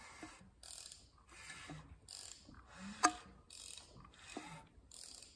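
Jeep 3.8L V6 engine being turned over by hand with a wrench on the crankshaft: a rhythmic series of short rasping strokes, about one every half second, with one sharp click about three seconds in.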